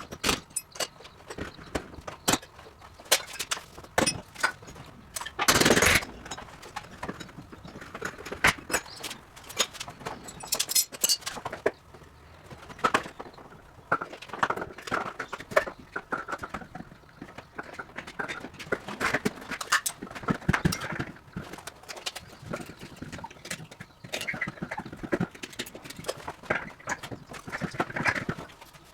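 Irregular knocks, clicks and clattering of hand dismantling work, with a louder rattling burst about six seconds in.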